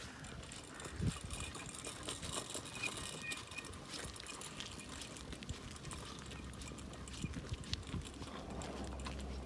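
Small child's bicycle with training wheels rolling over asphalt, heard faintly as scattered light clicks and rattles over a low steady hum.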